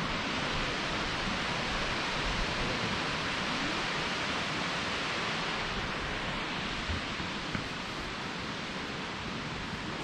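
Steady rushing of Nachi Falls, a 133-metre waterfall, a constant roar of falling water that eases a little about seven seconds in.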